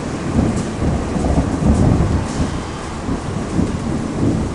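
Thunder rumbling over steady heavy rain, the low rumble swelling and fading several times and loudest about two seconds in.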